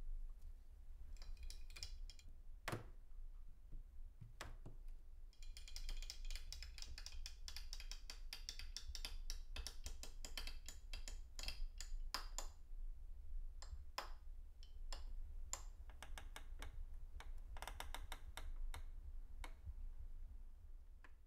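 A metal doorknob and its latch rattling and clicking in irregular spells of rapid small clicks, over a low steady hum.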